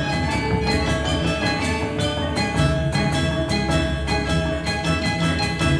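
Indonesian gamelan ensemble playing: many struck metallophones ringing out in a rapid, even pulse of notes, layered over lower sustained tones.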